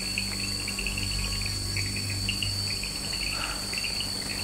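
Chorus of forest insects, crickets among them: a steady high-pitched whine with rapid, broken chirping over it.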